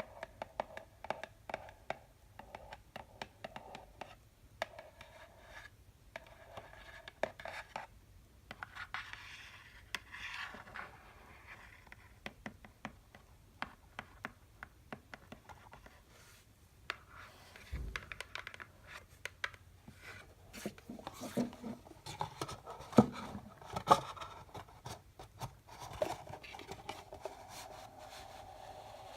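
Tapping and scratching on candy boxes: quick, irregular taps with stretches of scratching and rubbing. The sharpest taps come about two thirds of the way through.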